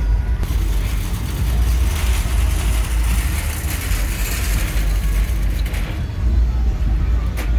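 Car traffic: a steady low engine rumble, with a louder rush of noise that swells from about half a second in and fades near six seconds.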